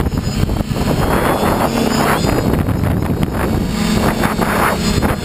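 FPV quadcopter's electric motors and propellers whirring up close, heard through the drone's onboard camera, with wind rushing over the microphone as it flies.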